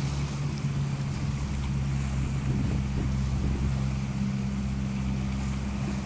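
Motorboat engine running with a steady low hum, over wind and rushing water.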